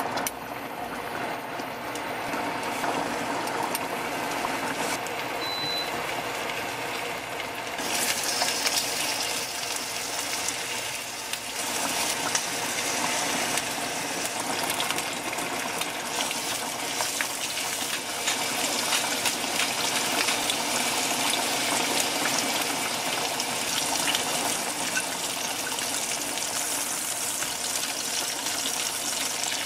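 Water running steadily, getting brighter and hissier about a quarter of the way in.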